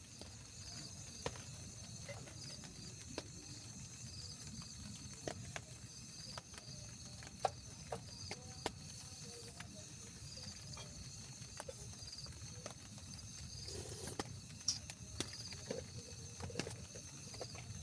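Tropical forest animal chorus: a steady high buzz with a chirping call repeating about once a second, over a low rumble, with scattered sharp clicks and taps.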